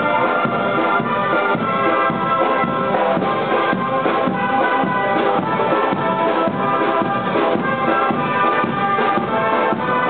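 Brass band playing a march, with held brass notes over a steady drumbeat.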